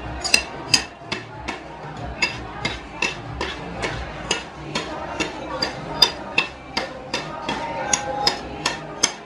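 Two flat metal spatulas striking and chopping on the frozen steel plate of a rolled-ice-cream pan as the liquid base is worked, a sharp metallic clack about two to three times a second.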